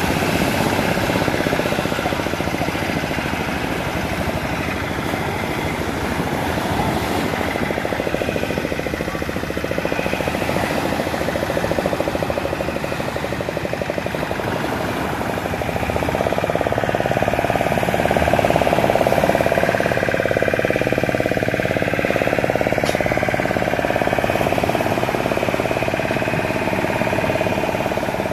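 A fishing boat's outboard motor running steadily with a rapid even beat, alongside the hiss of small surf breaking on the beach. The engine gets a little louder and higher-toned about halfway through.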